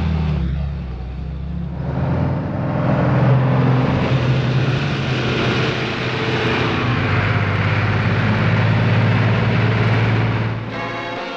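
DAF 4x4 army truck's diesel engine running under load, briefly quieter about a second in and then steady and strong. Near the end it gives way to bell-like ringing.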